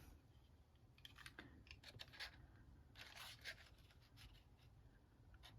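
Faint rustling and light ticks of card and paper being handled on a craft desk, a few soft scrapes spread through an otherwise quiet stretch.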